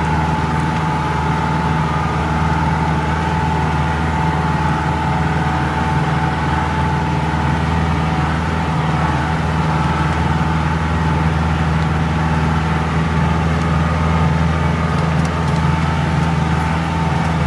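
Mahindra 4x4 jeep engine running steadily under load as the jeep crawls along a rough forest dirt track, heard from inside the vehicle, with a steady high whine over the engine drone.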